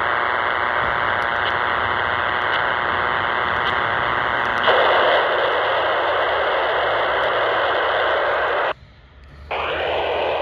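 Steady hiss of static from a PNI Escort HP82 27 MHz CB handheld receiving an empty channel. About halfway through the hiss changes in tone as the radio is switched from AM to FM, and shortly before the end it cuts out for under a second, then returns.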